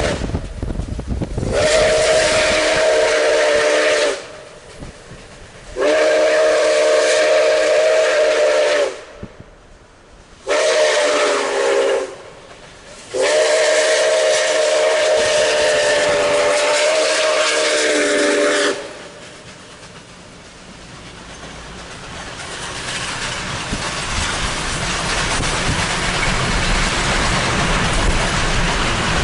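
Nickel Plate Road Berkshire No. 765's steam whistle sounding a chord of several notes in the grade-crossing pattern: two long blasts, a short one, then a long one. After the last blast a steady rushing noise from the running train builds up louder.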